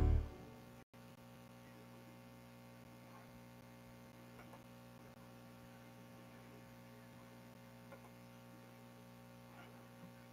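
Music fades out in the first half second, leaving a faint, steady electrical hum with several low tones.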